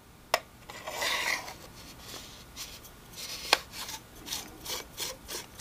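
The lower half of an Xtuga U250 handheld wireless microphone transmitter being screwed back onto the body over the battery compartment: a click, a scrape, then a run of short rasping twists of the threads.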